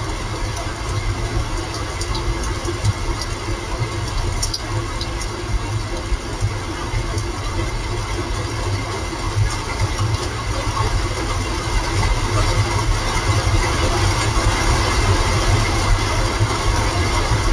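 Steady rain hiss over a continuous low rumble, with a few faint ticks in the first seconds and a slight swell in the second half.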